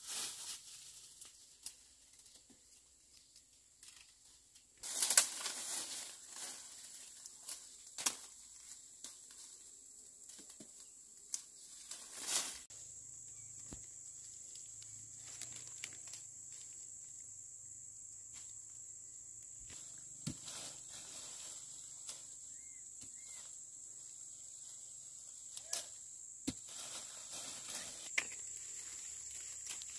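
Leaves rustling and twigs snapping as rambutan clusters are pulled from a tree, loudest about five seconds in, with scattered sharp clicks. A steady high-pitched drone comes up about twelve seconds in and continues.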